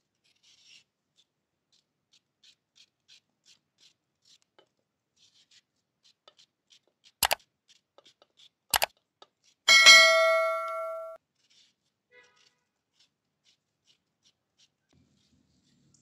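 Faint scattered ticks of a knife cutting watermelon rind into chunks. Then an overlaid subscribe-reminder sound effect: two sharp clicks about a second and a half apart, followed by a bright notification-bell chime that rings for about a second and a half and fades.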